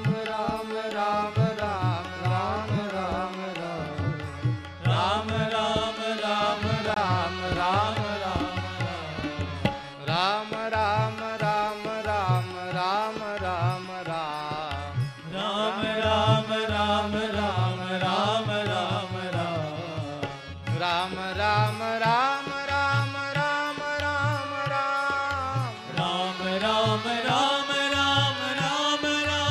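Devotional bhajan music: a melodic lead that slides up and down in pitch over a steady tabla rhythm.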